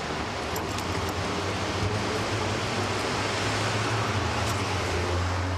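Street traffic noise: a steady low hum under a wash of road noise, with a few faint clicks.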